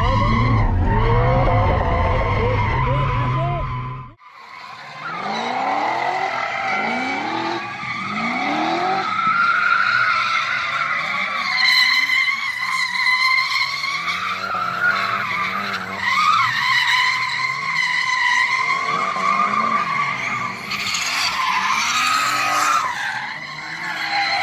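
Nissan S15 200SX's turbocharged SR20DET four-cylinder drifting, the engine revving in repeated rising sweeps while the tyres squeal without a break. For the first four seconds it is heard from inside the cabin with a deep drone. Then it cuts abruptly to the same kind of engine and tyre sound heard from trackside, without the low rumble.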